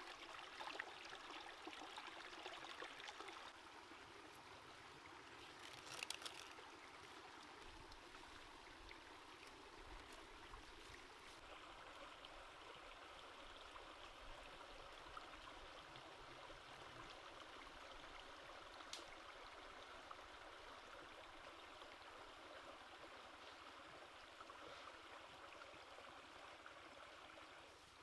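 A small stream running over rocks, a faint steady rush of water, a little louder in the first few seconds, with a couple of faint clicks.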